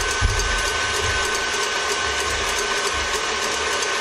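Stand mixer running steadily, its wire whisk beating eggs in a stainless steel bowl: a constant motor whine with a fast, even rattle. There are a few low bumps in the first second.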